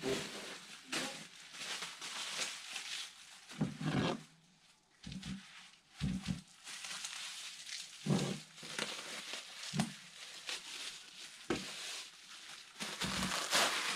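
Plastic bubble wrap crinkling and rustling as it is pulled off its roll and wrapped around a wooden tray, with several short dull thuds of handling on the table.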